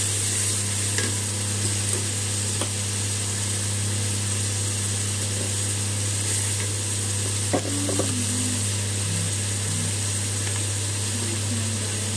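Tomato masala sizzling in hot oil in a kadhai while a spatula stirs it, with a couple of light knocks of the spatula against the pan, about two and a half and seven and a half seconds in. A steady low hum runs underneath.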